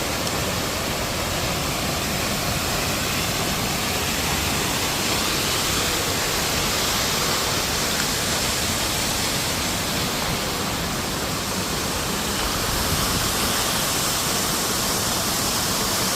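Waterfall pouring: a steady, even rush of falling water with no break or change.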